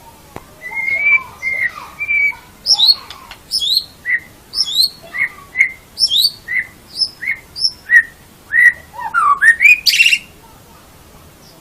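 White-rumped shama singing: a long phrase of clear whistled notes, a rising sweep alternating with a lower note about once a second, ending in a quick run of rising notes and a loud harsh burst near the end.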